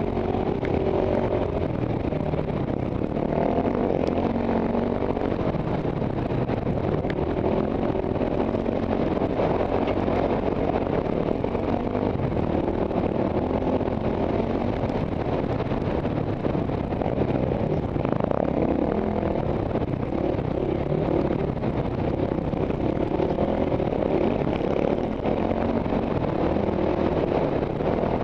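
KTM single-cylinder enduro bike engine running under way on a dirt trail, its pitch rising and falling with the throttle, heard up close from the rider's position along with wind and dirt noise.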